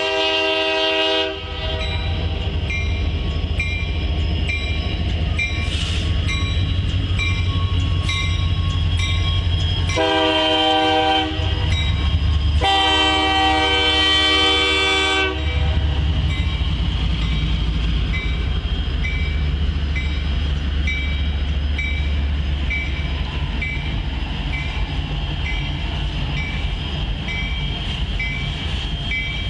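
Union Pacific diesel locomotives' air horn sounding as a freight train passes: a blast that ends about a second in, a short one about ten seconds in, then a longer one of nearly three seconds. Underneath, the lead diesels' engines rumble by, followed by the steady rolling noise of refrigerator boxcars on the rails.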